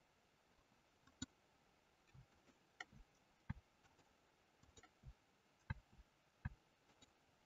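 Faint, irregular clicks of a computer mouse and keyboard being operated, about ten in all, some with a soft thud under them.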